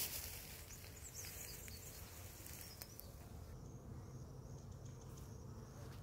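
Honeybees buzzing around a beehive, a steady low hum. Light rustling of grass and brush in the first half.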